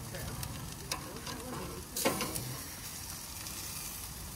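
Tomahawk steak sizzling as it cooks, with a few light clicks and a sharper knock about two seconds in.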